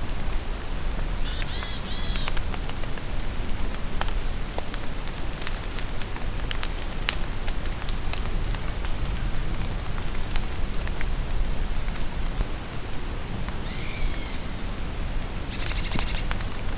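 Steady rain in a forest, with drops ticking on leaves, and songbirds calling: one burst of song about a second and a half in, and another near the end that runs straight into a rapid trill. Short, high chirps come and go throughout.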